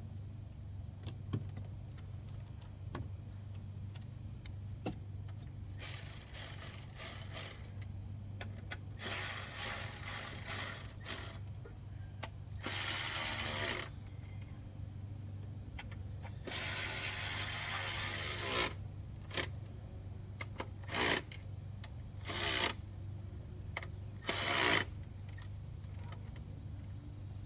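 Ratchet wrench clicking in several runs of a second or two, with scattered sharp clicks and knocks of tools on metal, as the throttle body of a 5.0 V8 is bolted back on. A steady low hum runs underneath.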